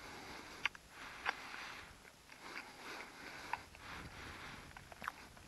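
Quiet background with faint rustling and a few sharp, separate clicks or snaps.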